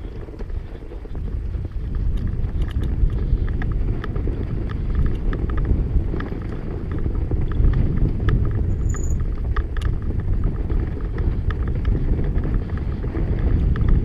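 Riding a fat bike down a packed-snow trail: a steady rumble of wind buffeting the microphone, over tyres rolling on snow and scattered small clicks and rattles from the bike.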